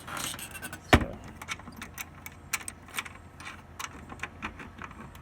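A single loud knock about a second in, followed by irregular light clicks and rattles, like something being handled or shut in the chicken coop.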